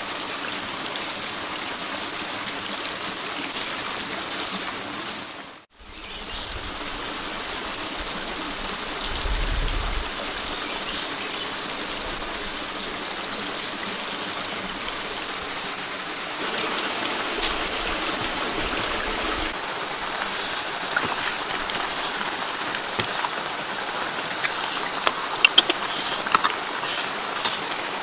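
Chili curry sizzling and bubbling in a pan: a steady hiss that briefly cuts out about six seconds in, with sharp crackling pops in the second half.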